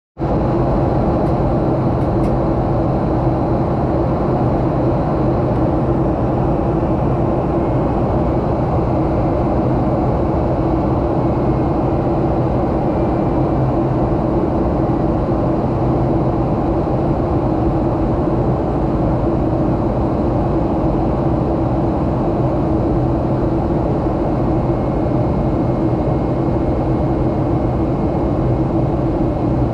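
Steady cabin noise inside a jet airliner on approach: an even drone of engines and rushing air with a low, constant hum, unchanging throughout.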